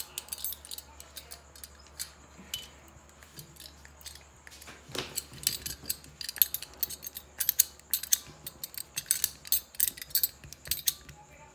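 Irregular light metallic clicks and clinks from a folding hex key set being turned in the cover screw of an Avenger air rifle magazine, with one stronger click about five seconds in.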